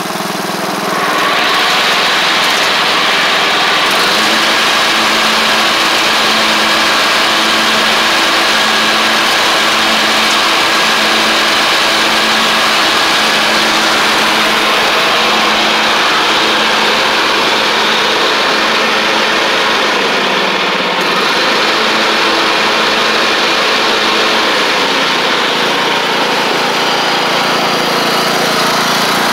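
Craftsman LT1500 lawn tractor's newly installed replacement engine running steadily as the mower is driven on a test run. It gets louder about a second in, then holds an even pitch.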